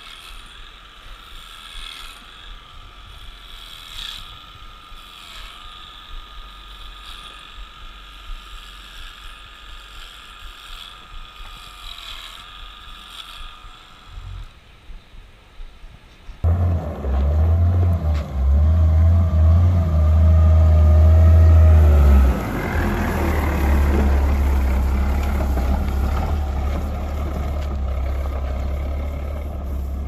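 Electric livestock clippers buzzing steadily, their pitch dipping briefly now and then as they cut through a cow's tail hair. About halfway through, a much louder deep rumble takes over: a Volvo wheel loader's diesel engine running.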